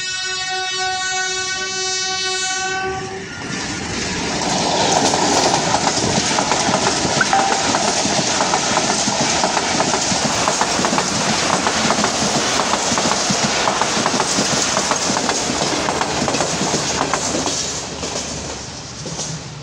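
Train horn blowing one steady note for about three seconds, then a passenger train running past close by, its wheels clattering over the rail joints. The noise fades near the end as the last coach goes by.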